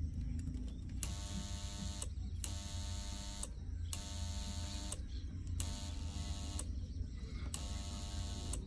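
A buzzing machine sound, pulsing on for about a second and off for about half a second, five times, over a steady low hum.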